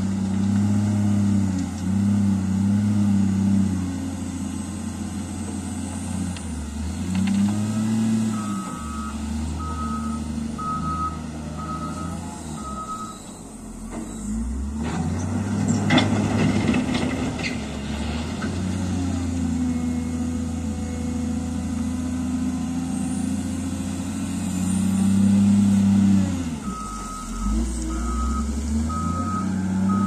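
Caterpillar 950 wheel loader's diesel engine running and revving up and down as the machine works, with its reversing alarm beeping about once a second in two spells, about a third of the way in and again near the end. A sharp knock about halfway through.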